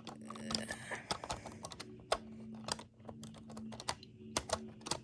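Rapid small plastic clicks and taps of N-scale model train cars being handled and set on the track, irregular throughout, over a low hum that comes and goes.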